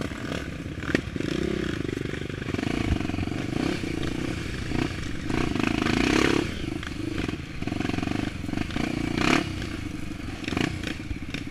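Single-cylinder four-stroke engine of a Honda XR 250 Tornado trail motorcycle, bored to 280cc with an aftermarket exhaust. It pulls in about five short bursts of throttle with easing between them. A few sharp knocks and clatter come from the bike over rough ground.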